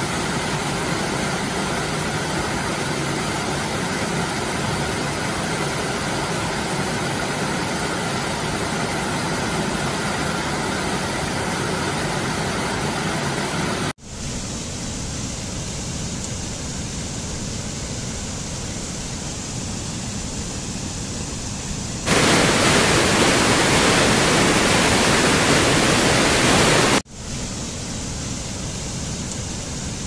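Rushing water of waterfalls cascading over rock, a steady dense hiss in several spliced takes. The sound changes abruptly about 14 seconds in, turns much louder and brighter about 22 seconds in, and drops back about 27 seconds in.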